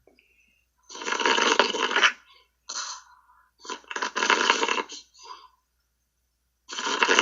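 A man snoring, heard over a Skype call: three long noisy snores about three seconds apart, with fainter breath sounds between them.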